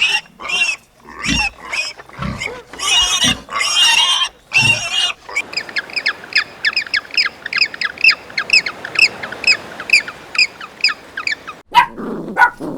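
Animal calls: several loud, harsh cries, then a rapid run of short, high chirps, about three a second.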